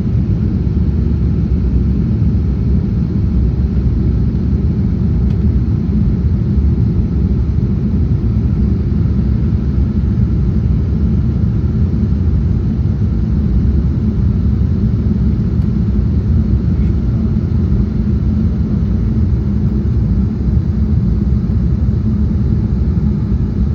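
Steady low cabin rumble inside an Embraer 195-E2 airliner in flight, its Pratt & Whitney PW1900G geared turbofans and the airflow droning evenly without change.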